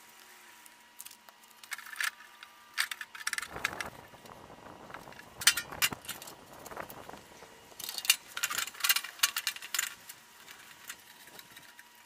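Several short hissing squirts from a hand trigger spray bottle onto a rusty sheet-metal fender panel, mixed with the clatter and scrape of the panel being handled and lifted off the asphalt.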